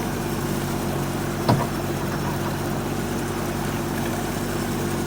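A vehicle engine idling steadily, with one short knock about a second and a half in.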